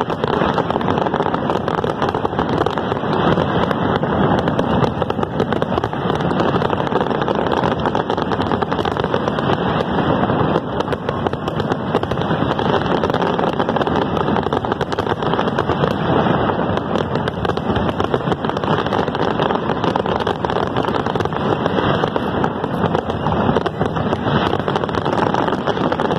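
Fireworks display at full barrage: a dense, unbroken stream of bursting shells and crackling stars, many going off at once.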